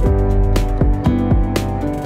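Background music: a plucked guitar over a steady beat.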